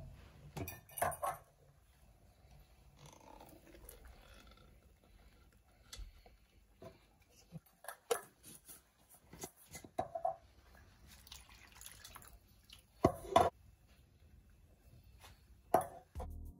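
Scattered clinks and knocks of a container against a ceramic bowl, with soft wet pouring as a blended vegetable purée is tipped over raw goat meat. A pair of louder knocks comes a little before the end.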